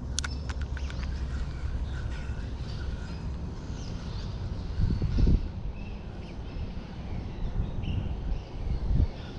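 Birds calling outdoors, short scattered calls and a few clicks over a steady low rumble, broken by two dull low thumps about five seconds in and near the end.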